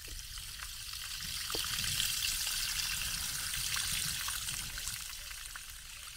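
Rainwater pouring through the spillway notch of a concrete-block dam wall and falling into the pit below: a steady trickling splash that grows louder in the middle and eases off near the end.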